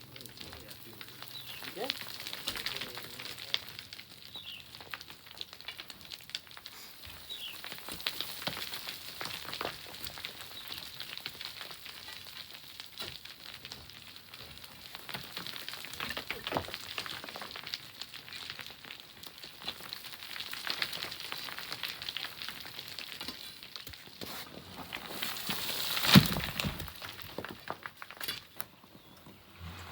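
Sand and pebbles trickling and clattering down a dug sand face, a dense patter of small stones. A swelling rush of sliding material ends in one heavier thud near the end.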